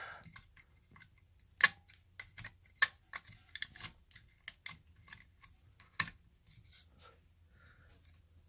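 Scattered clicks and light knocks of metal and plastic washer parts being handled as a retaining clip is fitted back on, with three louder clicks: about a second and a half in, near three seconds, and about six seconds in.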